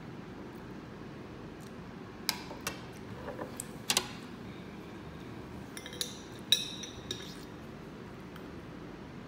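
Scattered light clinks and knocks of a glass jar and plates being handled on a countertop, the sharpest about four and six and a half seconds in.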